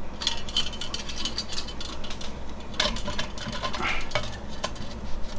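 Light metallic clicks and clinks as the brass windscreen sleeve of an Optimus Svea 123R stove is handled and fitted down over the stove, over a steady low hum.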